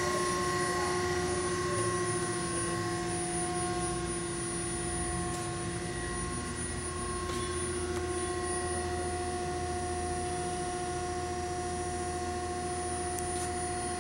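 Hydraulic power unit of a Strippit Super 750 SG hydraulic fabricator running at idle: an electric motor and hydraulic pump giving a steady, even hum, with a few faint ticks over it.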